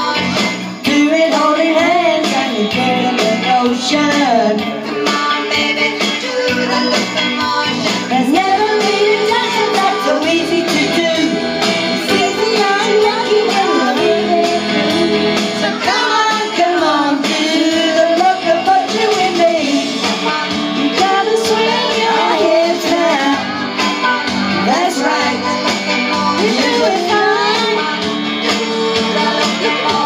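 Women singing karaoke together into microphones over a recorded backing track.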